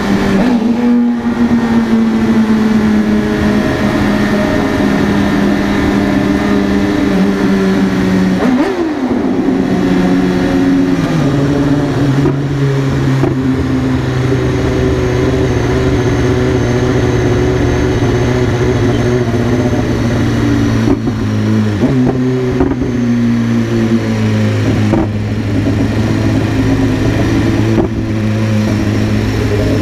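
BMW S1000RR's inline-four engine running steadily under way. Its note briefly rises and falls, then drops to a lower steady pitch about a third of the way in and holds there.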